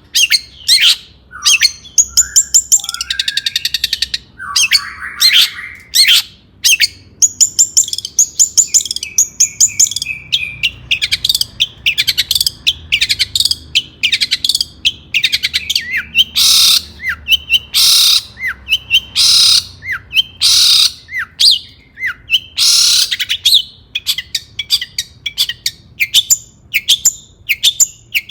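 Long-tailed shrike (cendet) in full song: a continuous, fast and varied run of sharp chirps, rapid trills and harsh rasping notes.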